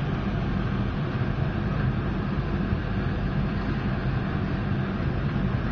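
Biomass gasifier furnace running under test: a steady low mechanical drone with an even rushing noise over it.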